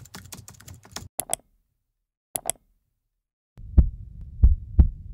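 Keyboard-typing clicks of a text-animation sound effect for about a second, then two short double clicks and a silent pause. A few deep bass drum thumps, each dropping in pitch, start near the end as the intro music begins.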